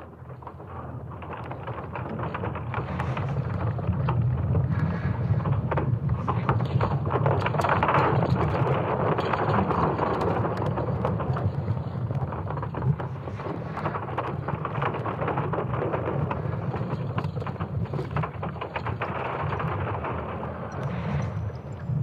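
Sonification of Earth's magnetic field built from ESA Swarm satellite magnetic data: a deep rumbling with scattered crackles and clicks, fading in over the first couple of seconds and swelling and easing. It represents the rumbling core field clashing with charged particles from a solar flare's geomagnetic storm.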